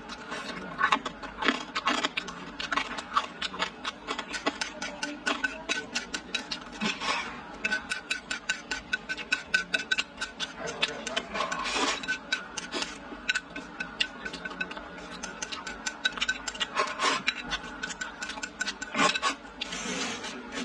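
Close-up eating sounds of rice eaten from a bowl with chopsticks: rapid small clicks, chewing and mouth noises, and chopsticks scraping against the bowl.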